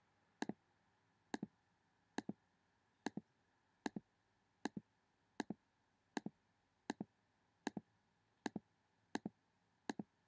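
Faint, evenly repeating clicks, about one every 0.8 seconds, each a quick double click, over an otherwise near-silent background.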